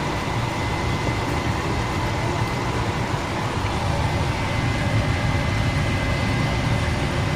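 Steady rushing noise of stovetop cooking, with shrimp and pasta on the heat, and a faint steady high tone running through it.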